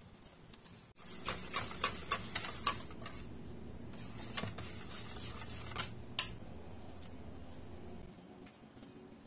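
Wire whisk beating thick flour-and-egg batter in a stainless steel bowl: a quick run of sharp ticks of the wires against the metal, about four a second, then steadier, quieter stirring with a few more ticks and one louder one a little after halfway.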